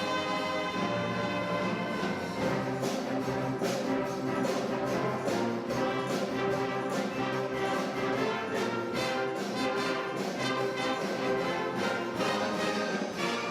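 Orchestra playing with brass to the fore, over regular percussion strokes.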